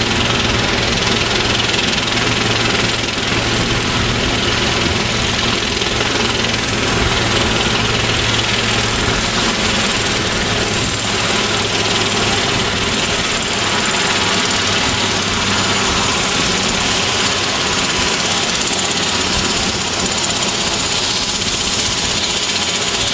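Sikorsky S-76 helicopter running on the ground, its twin turbine engines and turning rotors making a loud, steady noise. A high turbine whine slowly falls in pitch from about six seconds in.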